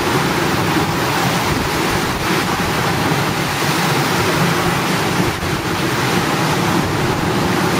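Ocean surf washing onto the beach in a steady rush, with wind blowing across the microphone.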